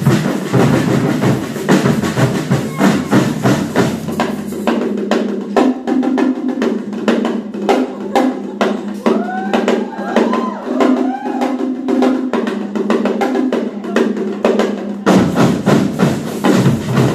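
Batucada percussion ensemble playing a fast, steady groove on snare drums, drum kit, congas and surdo bass drums, with tambourine. For most of the middle the sound turns thin, its low end and top cut away, with a few short gliding tones, before the full sound returns near the end.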